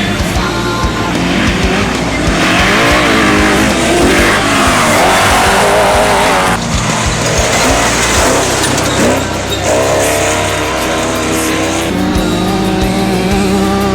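Off-road race vehicle engines revving at high speed, their pitch rising and falling, over background music with steady bass notes.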